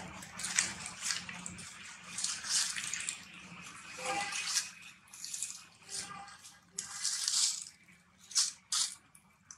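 Dry fallen leaves crackling and rustling in short, irregular bursts as a baby long-tailed macaque picks through and tugs at them.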